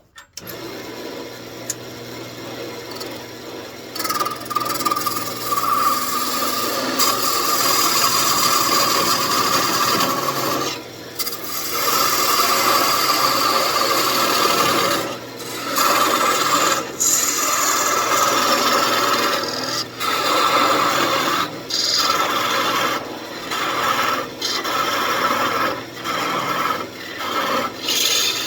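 Wood lathe running with a turning tool cutting into a spinning walnut blank. The motor hum comes in right at the start, and the steady scraping of the cut begins about four seconds in. The cut breaks off briefly about ten times as the tool is lifted.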